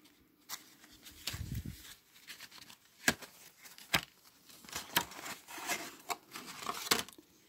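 Folded card envelope being opened by hand: paper flaps rustling and crinkling as they are unfolded, with a few sharp paper clicks as the folds spring open.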